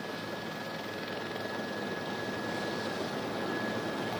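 Steady rushing aircraft noise with a thin, steady high tone running through it, growing slightly louder.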